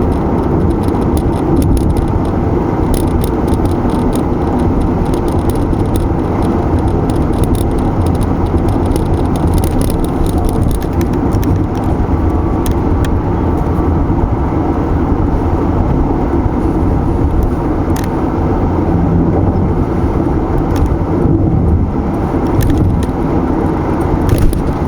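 Car driving at steady speed: continuous tyre and engine rumble, with frequent small clicks and rattles throughout.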